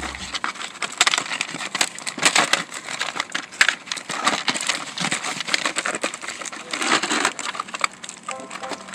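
Toy packaging being handled and pulled apart, with irregular crinkling, crackling and sharp clicks from plastic and cardboard.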